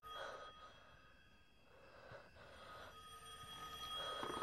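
A telephone ringing faintly, its ring coming and going and growing louder near the end.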